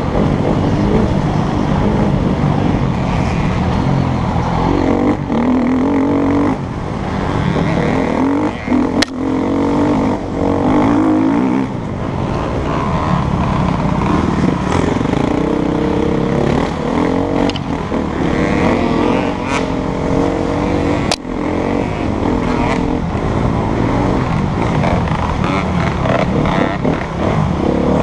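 KTM EXC-F 250 enduro motorcycle's single-cylinder four-stroke engine, heard close from the rider's helmet, revving up and falling back again and again through gear changes, with wind rushing past and two sharp knocks.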